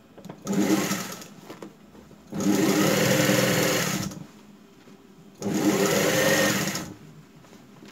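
Industrial sewing machine running in three runs as it topstitches a seam in denim jeans: a short burst just under a second in, then two longer runs of about one and a half seconds each, stopping in between.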